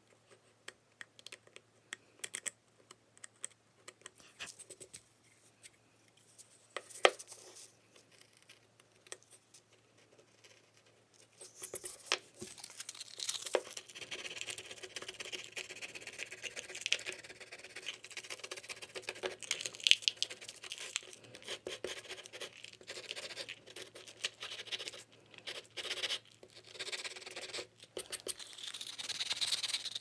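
A basswood bird carving being worked by hand with a carving tool: at first scattered small clicks and scratches, then close, steady scraping and shaving strokes for the rest of the time.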